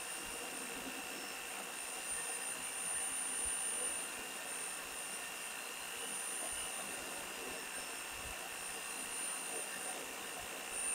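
Homemade boring tool running steadily, its cutter boring out the cylinder of a Honda Dio crankcase; a steady high-pitched whine.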